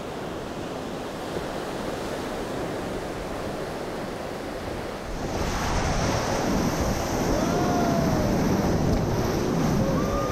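Ocean surf breaking and rushing, as a steady wash for the first few seconds. About five seconds in it turns suddenly louder and closer: water churning around a surfboard, with wind buffeting the microphone. A few faint short calls come through near the end.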